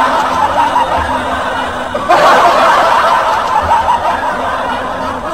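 Laughter from a crowd, of the kind dubbed into clip compilations as a laugh track. One burst eases off and a fresh burst starts about two seconds in, then eases off again.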